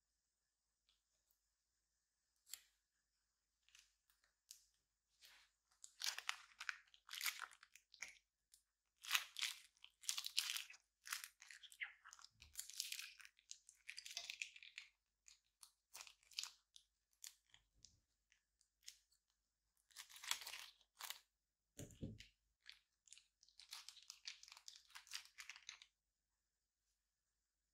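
Clear plastic piping bag crinkling and crackling in irregular bursts as it is squeezed, pressing clear slime out into a tray. There are a few isolated clicks at first, and one soft low thump later on.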